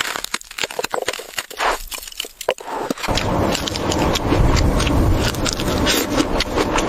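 Scattered light crackles and knocks, then about three seconds in a steady sound of liquid being poured starts and keeps going.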